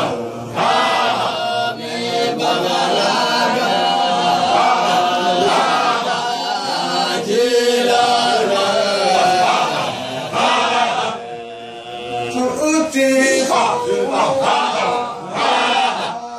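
A group of men chanting together in a Sufi devotional chant, with a short lull about two-thirds of the way through.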